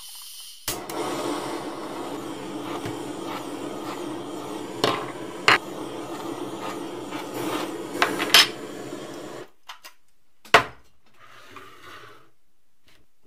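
Handheld butane torch on a gas canister, lit with a sharp click and burning with a steady rushing hiss as its flame is played over a small metal cover plate to burn off grease; a few clicks and taps of handling sound through it. The torch cuts off suddenly, and about a second later comes a single sharp knock.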